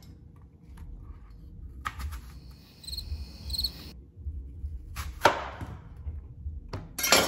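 Knife chopping through apples onto a cutting board: a sharp chop about five seconds in and another near the end, with fainter knocks between.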